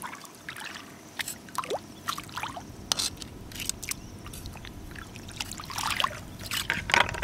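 Shallow seawater sloshing and trickling as hands and rubber boots move through it, picking sea snails out of seaweed, with many small scattered clicks and splashes. The splashing is loudest near the end.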